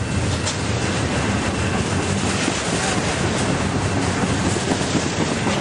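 Double-stack container train cars passing close by at speed: a steady, loud rush and rumble of wheels on the rails.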